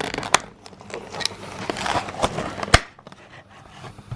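Toy packaging being pried open by hand: cardboard and plastic rustling and scraping, with a few sharp clicks and snaps.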